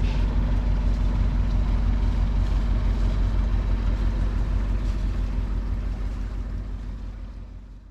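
A sailboat's inboard diesel engine running steadily under way, a low even drone that fades out near the end.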